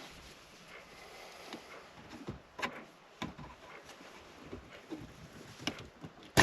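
Faint scattered clicks and knocks of plastic dashboard trim being worked loose by hand, with one sharp click at the very end.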